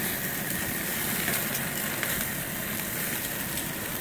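Burgers and a pork chop steak sizzling over flaring flames on an open gas grill: a steady hiss with a few faint crackles.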